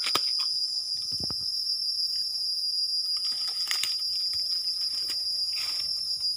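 A steady high-pitched drone of insects, with a few faint clicks and rustles now and then.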